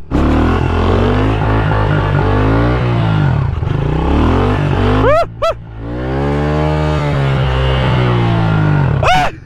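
Small 110 cc single-cylinder four-stroke pit bike engine revving under way, its pitch climbing and falling with the throttle. The note drops away briefly twice, about three and a half and six seconds in, between pulls.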